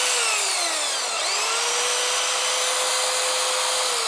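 WEN portable bandsaw's motor and blade running free with no cut. The whine winds down just after the start, spins back up about a second in, runs steady, and begins to wind down again near the end.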